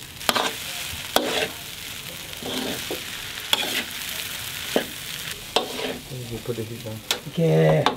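Fried rice sizzling in a metal wok on a gas stove as a metal spatula stirs and tosses it. The spatula scrapes and knocks sharply against the wok every second or so.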